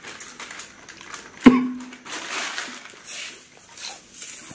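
A plastic snack packet crinkles as dry namkeen is poured into a steel pot of puffed rice and stirred by hand, giving crisp rustling and crunching throughout. About a second and a half in, a single sharp metallic clink rings briefly.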